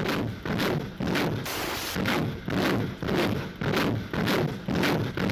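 BM-21 Grad multiple rocket launcher firing a salvo: rockets leaving in quick succession, about two a second, each launch a short rushing blast.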